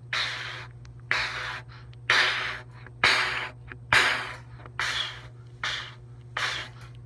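Eight short, unpitched puffs of breath, about one a second, each starting sharply as the tongue releases a 'ta' and fading out. These are articulation drills blown at the trumpet, with no note sounding. A steady low hum runs underneath.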